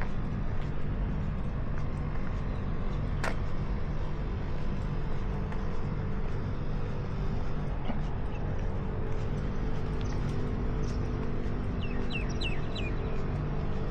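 Honda CBR650R's inline-four engine running at a steady, even note, with a sharp click about three seconds in and a few short high chirps near the end.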